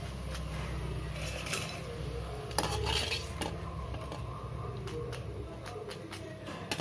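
A metal spoon clinking and scraping against a pan of hot oil while rice vadagam fry, with a few sharp clinks among the scraping.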